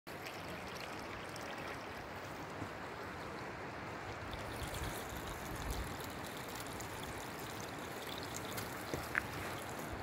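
A creek rushing steadily, with a few soft thumps about halfway through and near the end.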